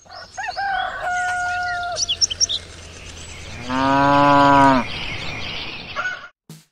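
Farmyard sound effects: a rooster crows in the first two seconds, a few short high chirps follow, and about four seconds in a cow moos, the loudest sound, all over a steady farmyard background.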